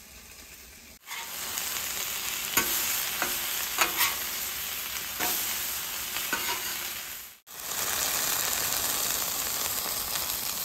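Curly dock stems searing in butter on a hot flat-top griddle, a steady sizzle that gets louder about a second in. Between about two and six and a half seconds in there are several short clicks and scrapes as a metal spatula turns the stems against the griddle.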